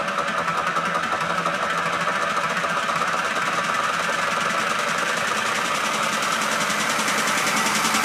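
Techno track playing in a DJ mix, in a build-up section: a fast, even buzzing pulse over a held synth tone, with no bass drum under it, growing slightly louder.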